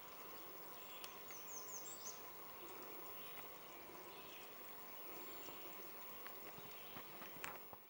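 Faint outdoor ambience: a steady low hiss, with a short run of quick high chirps about a second and a half in and a soft click near the start and near the end.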